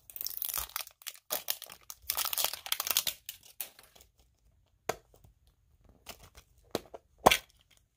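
Plastic wrapping crinkling and tearing as a surprise toy egg is opened by hand. The rustling is densest for the first three seconds or so, then gives way to a few scattered clicks and taps, the sharpest near the end.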